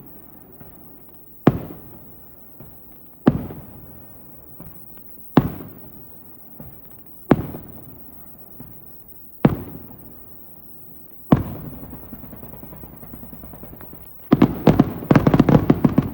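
Aerial firework shells bursting with loud booms about every two seconds, each trailing off in a rumbling echo. After the sixth burst a fast crackling carries on, and near the end a rapid barrage of many bursts starts.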